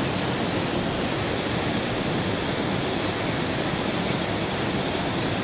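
Fast-flowing river rushing: a steady, loud wash of water noise with no breaks.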